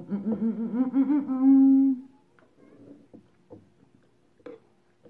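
A woman hums an appreciative "mmm" while eating, wavering in pitch for about two seconds and ending on a steady held note. A few faint clicks of eating follow.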